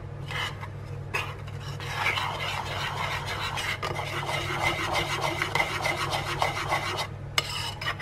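Metal spoon scraping round a ceramic bowl, quickly stirring thick, wet oat-and-cocoa batter, with short pauses near the start and near the end.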